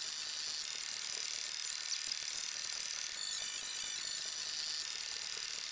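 Paintbrush bristles scratching along a bare wooden post as wood stain is brushed on, in a run of close strokes.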